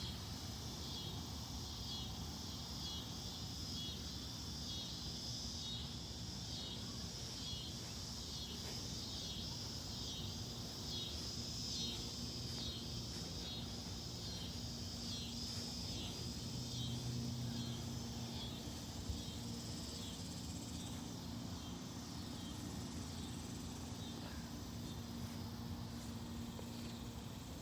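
Crickets and other night insects chirping in a steady, evenly pulsing chorus, over the low steady hum of a central air conditioner.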